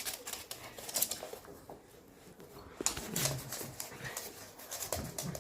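Dogs playing: scattered clicks and scuffling, with a few short low dog sounds about three seconds in.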